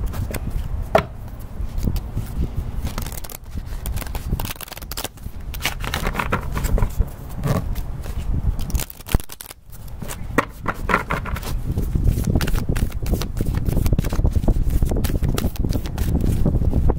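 A Wisdom of the Hidden Realms oracle deck being shuffled by hand, a run of quick crisp card riffles and flicks, over a low rumble of wind on the microphone that grows stronger in the second half.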